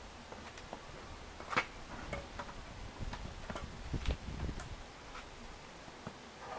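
Faint, irregular clicks and ticks over a low rumble of wind on the microphone.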